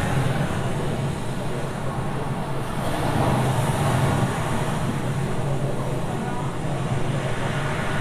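Ocean waves washing onto a beach: a steady rush of surf that swells a little about three seconds in.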